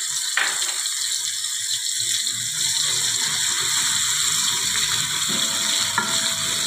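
Chopped onion sizzling and crackling in hot oil with cumin seeds, with a spoon stirring through it and a couple of sharp clicks.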